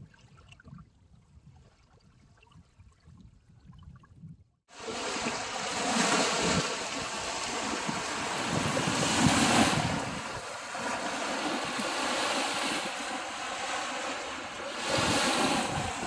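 Small lake waves washing in over a sand and pebble beach, swelling and easing every few seconds, with wind rumbling on the microphone. It is faint at first, then cuts out briefly about four and a half seconds in and comes back much louder.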